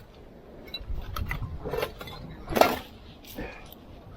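Scattered clinks and knocks of hard items being handled, several short taps with the loudest clack about two and a half seconds in, over a low rumble of handling or wind in the first half.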